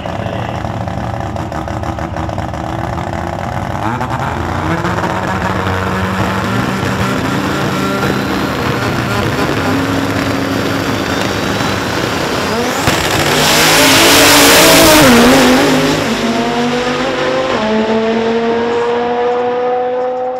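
Two turbocharged drag cars, a rotary-engined Mazda RX-7 and a twin-turbo Camaro, idling and revving on the start line. About two-thirds of the way in they launch at full throttle, the loudest part. The engines then pull away down the strip, their notes rising steadily.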